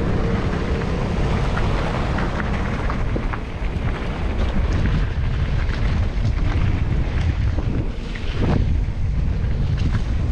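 Wind buffeting the microphone of a moving rider, a steady low rush with scattered clicks and rattles from riding over a rough road.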